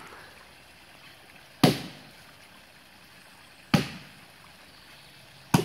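Ditch axe chopping into the trunk of a standing dead tree: three sharp strikes about two seconds apart. The core of the trunk is still solid wood, so the blows are not going very deep.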